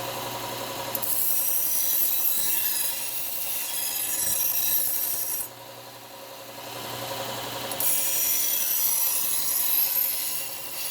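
Bucktool slow-speed bench belt sander running with a steady hum while a knife blade is ground on the moving belt to sharpen its edge: two grinding passes, the first starting about a second in and lasting about four seconds, the second starting near eight seconds, with a short lull between them.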